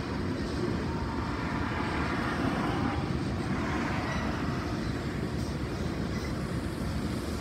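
Freight train of tank cars rolling past, a steady rumble of wheels on rail.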